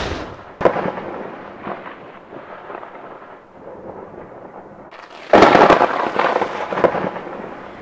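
A heavy stone dropping onto a pile of stones: a loud sudden crash and clatter a little after five seconds in, dying away over a second or so, after a quieter stretch of low crackling rumble.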